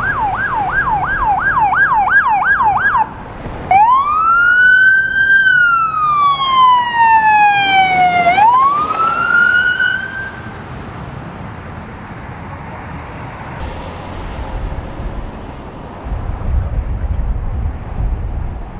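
Police emergency sirens. First a fast yelp of about three sweeps a second, which cuts off about three seconds in. After a short break comes a slow wail that rises, falls and rises again, then stops about ten seconds in. Road traffic noise follows, with a vehicle engine rumbling past near the end.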